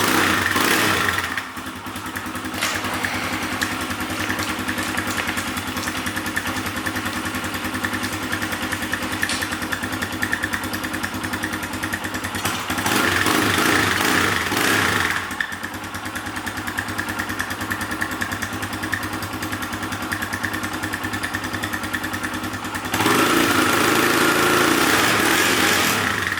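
Kawasaki KLX 140's single-cylinder four-stroke engine running on its stock exhaust, cold and a little cold-blooded. It idles steadily and gets louder for a couple of seconds three times: at the start, midway and near the end.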